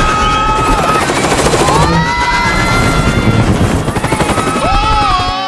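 Helicopter in flight, its rotors chopping fast. High tones hold and glide up and down over the chopping.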